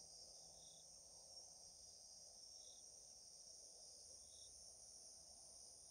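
Near silence: room tone with a faint steady high-pitched hiss.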